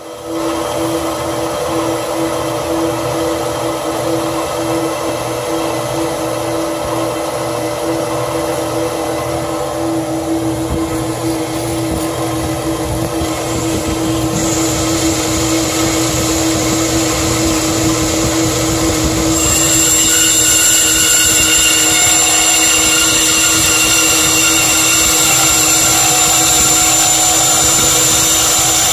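Metal-cutting band saw running and sawing through a Dahon folding bicycle's frame tube: a steady motor hum under the hiss of the blade. A high whine joins about halfway through and grows louder and shriller about two-thirds of the way in.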